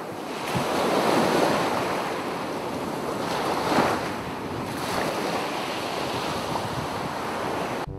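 Ocean surf washing onto a beach: a steady rushing that swells with each wave, loudest about a second in and again near four seconds, then cuts off suddenly at the end.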